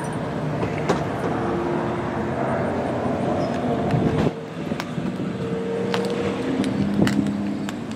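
Road traffic: car engines running and passing, with a few brief clicks over the steady noise.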